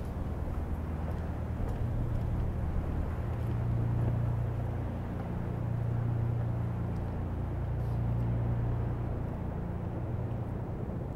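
Low, steady rumble of city traffic, with a deeper hum that swells for a few seconds in the middle.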